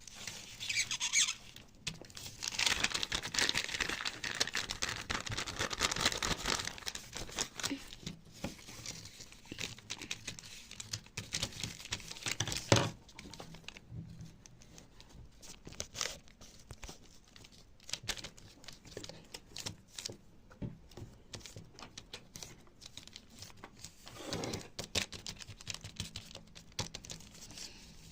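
Irregular rustling and crinkling of handled material, full of small clicks, loudest about three to seven seconds in, with a sharp knock about thirteen seconds in.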